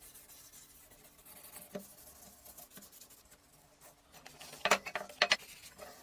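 Light scraping and rubbing of a small hard object worked by hand, with a few sharp clicks near the end.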